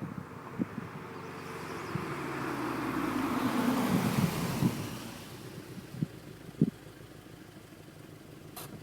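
A car drives past: a Scion FR-S's boxer four-cylinder on aftermarket headers, front pipe and exhaust. The sound grows to a peak about four seconds in, with tyre and road noise and an engine note that falls in pitch, then fades away. A short click near the end.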